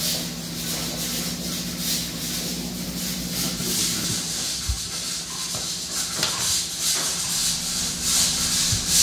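A pot of spicy chicken stew simmering, a steady bubbling hiss over a low steady hum, with a couple of light utensil taps against the pot partway through.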